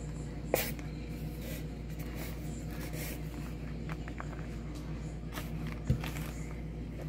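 Handling noise as a car speaker is turned over in the hands: light scrapes and rustles, and two sharp knocks, about half a second in and near the end, over a steady low hum.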